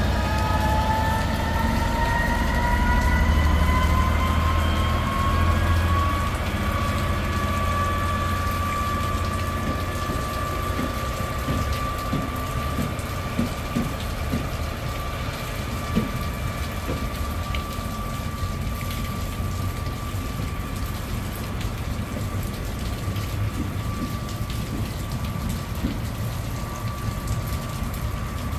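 DB Cargo Class 66 diesel locomotive accelerating away with a train of flat wagons. A whine rises in pitch over the first several seconds and then holds steady, while a deep engine rumble fades. Wagon wheels knock over the rail joints in the middle, over a steady hiss of rain.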